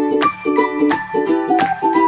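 Channel intro music: short chords repeating in a quick, even rhythm with a melody line above them.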